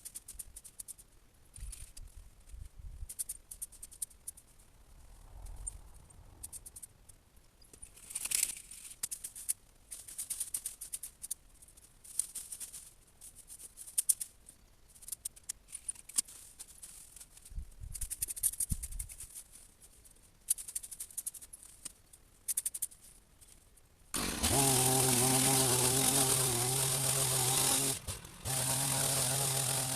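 Twigs and branches rustling and snapping in scattered clicks while a berberis hedge is cut and handled. About 24 s in, a hedge trimmer's motor starts and runs at a steady pitch, stops briefly and starts again near the end.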